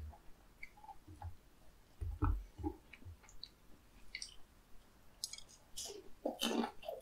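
Close-miked eating sounds: small chopstick clicks and soft chewing, then from about five seconds in a run of loud, crackly crunching as a bite of crispy battered fried food (Korean twigim) is chewed.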